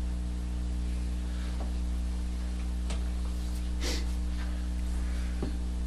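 Steady low electrical hum, with a few faint clicks and a short soft noise about four seconds in.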